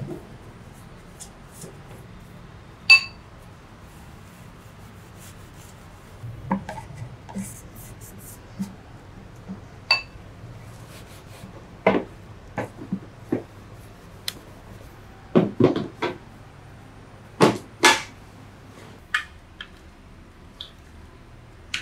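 Scattered clinks and knocks of a welding machine's sheet-metal casing and tools being handled and set down, a few at a time with pauses between. Two of the clinks ring briefly like struck metal, and a quick run of knocks comes in the second half.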